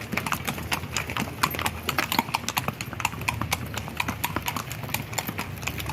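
Hooves of a herd of longhorn cattle and ridden horses clattering on a paved street as the drive passes, a dense, irregular stream of clip-clopping steps.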